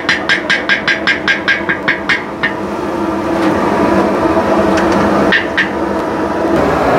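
Wooden stick tapped rapidly against a steel wok to knock solid cooking fat off it, about four taps a second, stopping about two and a half seconds in; two more knocks come a little after five seconds. A steady rumble runs underneath.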